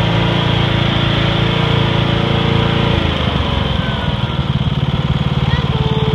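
Lawnmower engine running steadily. About three seconds in its sound changes and settles into an even, pulsing chug.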